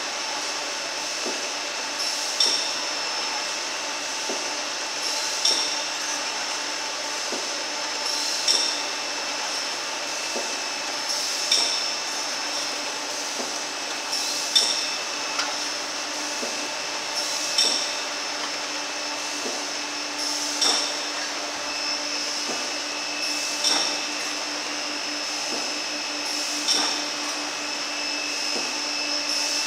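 2010 Marchesini MA 50 continuous-motion horizontal cartoner running: a steady mechanical hum with several constant tones, and a sharp clack about every three seconds.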